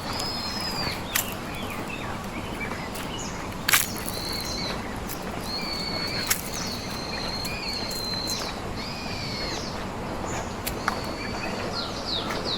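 Birds calling: a series of high, arched whistled notes about a second each, repeated throughout, with some lower whistles. A few sharp clicks cut in, the loudest about four seconds in, over a steady outdoor background noise.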